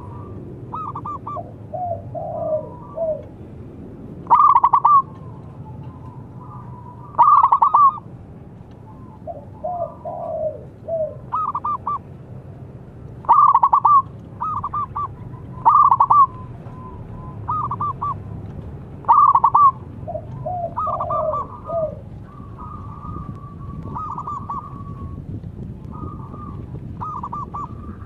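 Zebra dove (perkutut) cooing: short bursts of rapid, bubbling coo notes repeated every two to three seconds, some much louder than others, with lower falling coos in between.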